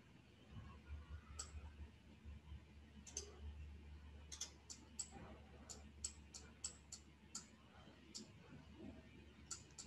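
Computer mouse clicking: short, sharp, light clicks at irregular intervals, with a quicker run of them in the middle, over a faint room hum.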